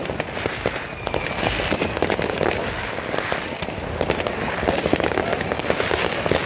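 Fireworks and firecrackers going off in quick succession: a dense, continuous crackling and banging with no pause.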